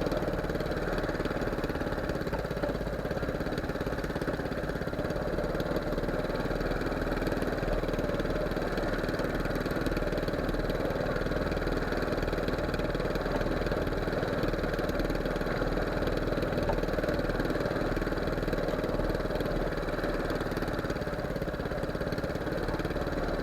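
A small fishing boat's engine running steadily at an even pitch and level.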